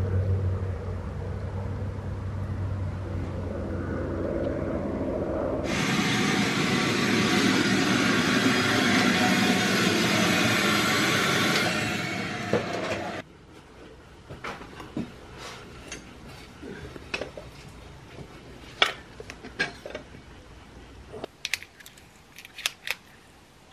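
Workshop machinery: a steady hum, then a loud rushing hiss for about seven seconds that cuts off suddenly. After it come scattered light clicks and taps of small metal parts handled at a workbench.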